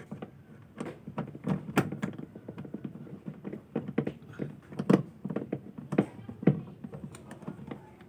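Screwdriver backing out screws from a washing machine's plastic cabinet panel: a run of irregular small clicks and taps, with a few louder knocks.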